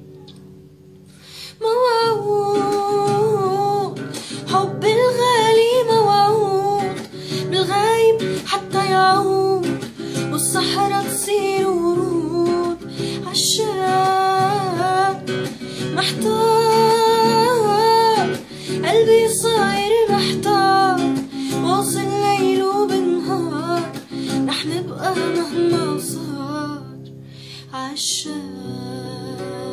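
A woman singing with vibrato, accompanying herself on acoustic guitar. The voice comes in about two seconds in and drops out near the end, leaving the guitar playing softly.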